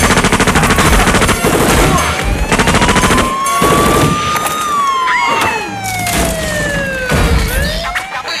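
Recorded sound effects of rapid machine-gun fire and a wailing siren, played loud as the opening of a stage act's backing track. The gunfire comes in two bursts early on, and the siren rises slowly, falls, then starts rising again near the end.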